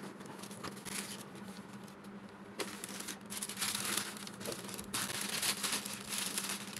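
Tissue paper and paper pages rustling and crinkling as gloved hands handle and wrap a spiral-bound book, busier from about two and a half seconds in, over a faint steady hum.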